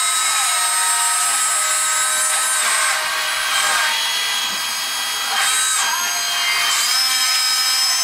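Whine of the small electric motors and gearing in a radio-controlled metal toy cable backhoe as it swings and works its cable-hung bucket. Several high tones shift in pitch and change every second or two, with short rising and falling sweeps as the motors start and stop.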